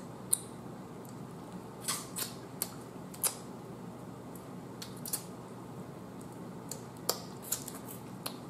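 Boiled blue crab shell cracking and snapping as it is picked apart by hand: a scatter of sharp crackles and clicks, with the loudest one about a third of a second in and another a little after three seconds.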